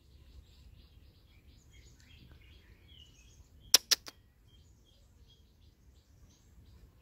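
Faint bird chirps scattered throughout, broken about four seconds in by three sharp clicks in quick succession, the loudest sound.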